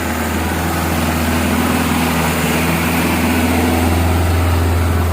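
Diesel truck engine working hard on a steep uphill climb, a steady low drone growing slowly louder.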